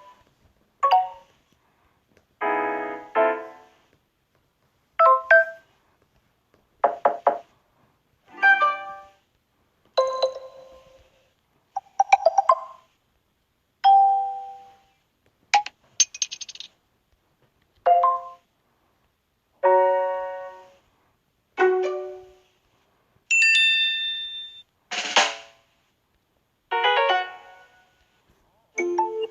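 Samsung Galaxy S7 stock notification tones played one after another: about sixteen short chimes and jingles, each a second or so long, separated by brief pauses.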